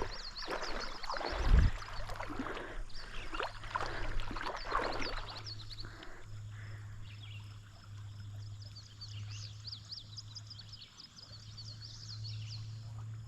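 Water splashing and sloshing for about the first five seconds, then quieter, with many short high-pitched chirps from small animals throughout.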